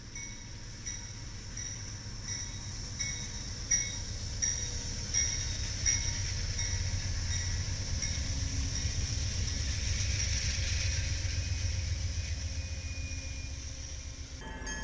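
Amtrak passenger train rolling into the station: a low rumble from the locomotive and cars builds over the first several seconds. Over it a bell clangs steadily, about once every three-quarters of a second.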